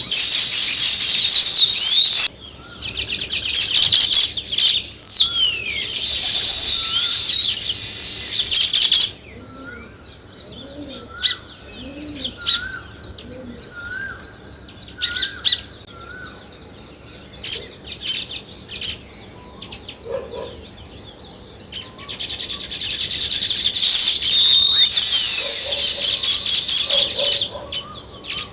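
A flock of small songbirds chirping in a loud, dense chorus that breaks off suddenly about nine seconds in. Scattered single chirps and a repeated short call with a rising hook follow, then the thick chirping chorus returns a little past twenty seconds and drops away again near the end.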